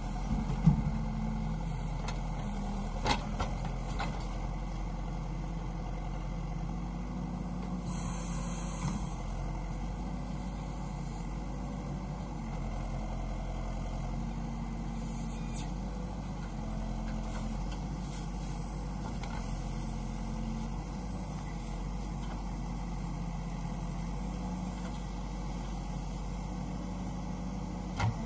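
JCB backhoe loader's diesel engine running steadily, its pitch rising and falling with the hydraulic load as the rear bucket digs, with a few sharp knocks from the bucket working the soil, the loudest about a second in.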